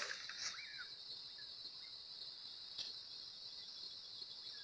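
Steady high-pitched chorus of crickets, with a faint knock about half a second in and another near three seconds in.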